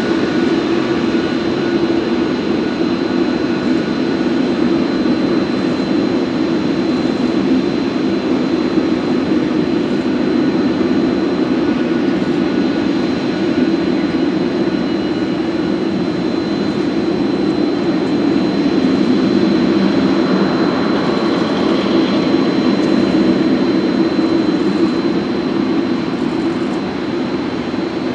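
Boeing 747-8F freighter's four GEnx turbofans running at low taxi power: a steady jet rumble with a constant high whine over it, swelling slightly past the middle and easing off near the end.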